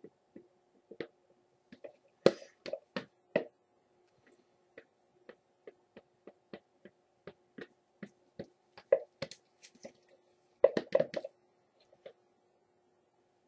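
Irregular light clicks and taps of hands handling soap-making containers and utensils, with a cluster of louder knocks about two seconds in and another near the end, over a faint steady hum.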